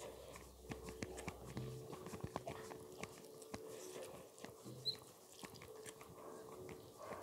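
Faint wet squishing and many small irregular clicks of bare fingers mixing and squeezing rice with chicken jhol curry on a plate, along with close-up chewing.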